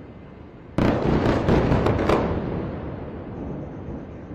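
Explosion from an airstrike. A sudden loud boom hits about a second in, followed by a rapid string of sharp cracks from smaller bursts, then a rumble that dies away over about two seconds.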